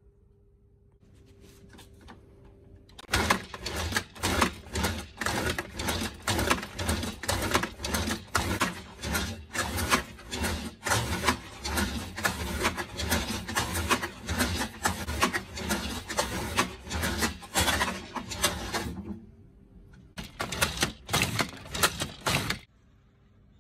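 Sweet potato being julienned on a CHIBA Hi-Slice manual slicer with its 3x3 comb blade: the food holder is slid back and forth over the blade in repeated cutting strokes, about two a second. The strokes pause briefly near the end, a last few follow, then they stop.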